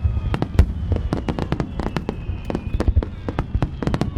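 Aerial fireworks going off in a dense, continuous barrage: many sharp bangs and crackles in quick, irregular succession over a low rumble, as in the final stage of a large set-piece fireworks show.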